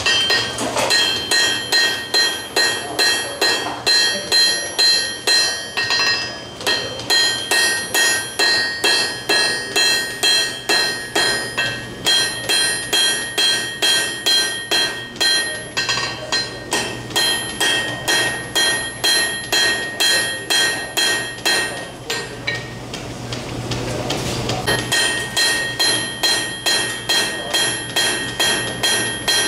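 Hand hammer striking a red-hot iron bar on an anvil in a steady rhythm of about two to three blows a second, each blow ringing out from the anvil. The blows ease off briefly about three-quarters of the way through, then pick up again.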